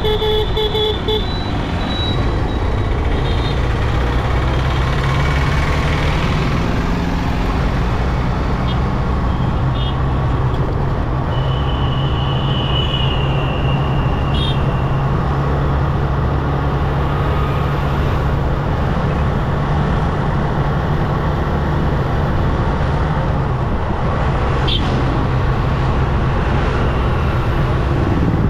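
Motorcycle engine running steadily at cruising speed amid city traffic noise. A vehicle horn is sounding at the start and stops about a second in, and a shrill horn sounds for about three seconds around the middle.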